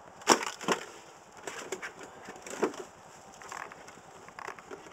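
Plastic gallon water jug, already shot through, being handled and squeezed: a string of irregular sharp cracks and crinkles, the loudest two close together near the start and another about halfway through.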